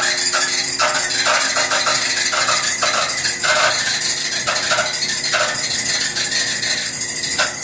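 Maytag clothes dryer running with a loud, rhythmic screech that repeats about twice a second as the drum turns. It is a dryer fault whose cause the owner does not know.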